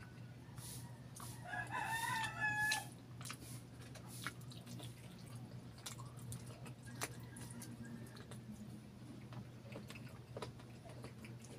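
A rooster crows once, about a second and a half in, for a little over a second. Around it are soft wet chewing and lip-smacking clicks from eating by hand.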